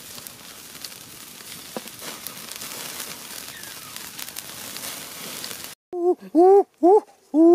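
Open wood fire crackling and hissing under a whole chicken roasting on a bicycle-wheel rim. About six seconds in this cuts off abruptly, and about four short, loud hooting calls follow, each rising and falling in pitch.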